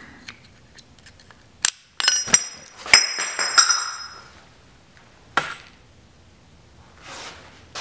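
Small metal parts clinking as a snap ring is worked off a shifter with snap-ring pliers: a sharp click, then a quick run of ringing metallic clinks and pings, and one more click a little later.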